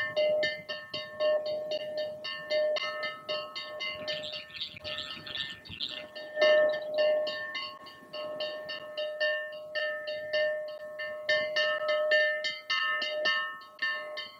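A large hanging bell struck over and over, about four strokes a second, its metallic ring carrying on between the strokes.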